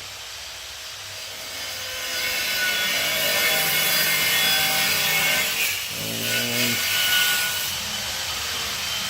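A saw cutting wood. The noise builds about two seconds in and carries on steadily, with a short pitched sound a little after six seconds.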